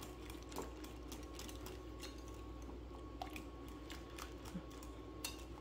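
Wire whisk stirring a thick rice-pudding mixture in a glass bowl: faint, scattered clicks of the wires against the glass.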